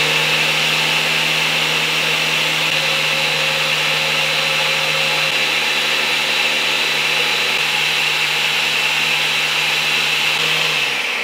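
Ninja countertop blender running steadily at full speed, whirling an egg-and-vinegar base into mayonnaise as oil is drizzled in. The motor cuts off near the end.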